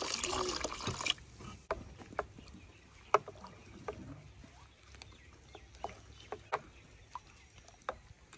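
Water poured into gram-flour (besan) batter in a glass bowl, stopping about a second in. Then a spoon stirs the thick batter, with scattered light clicks and wet slaps against the bowl.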